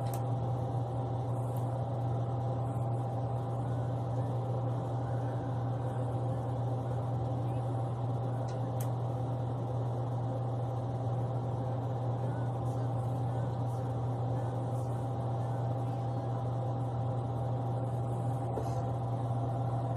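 A steady low hum with fainter higher tones above it, unchanging throughout, and a few faint clicks.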